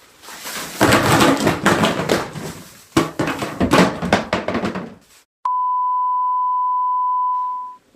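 A loud, crackly noise full of sharp clicks for about five seconds, then a single steady beep tone of about 1 kHz, held for about two and a half seconds before it fades out.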